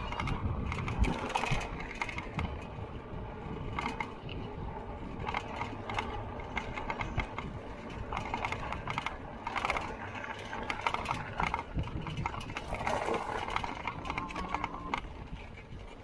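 Lectric XP electric bike ridden over rough dirt ground, its frame and parts rattling and clicking over a steady low rumble.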